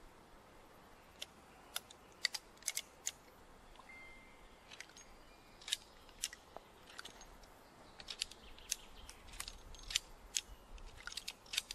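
Faint, irregular sharp metallic clicks and light knocks from a Colt 1860 Army percussion revolver being handled while it is loaded with paper cartridges, as the cylinder is turned and the loading lever worked. The clicks come more often in the second half.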